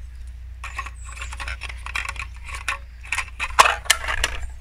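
Small spice tins and containers being handled, with irregular clicking, rattling and scraping and one sharp click about three and a half seconds in.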